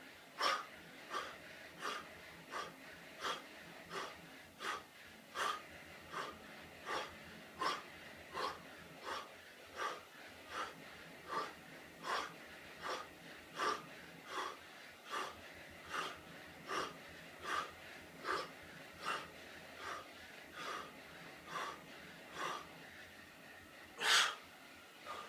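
A man breathing hard while doing fast push-ups: a short, sharp breath with each rep, about every 0.7 s, and one louder gasp near the end. The hard breathing is a sign of heavy exertion.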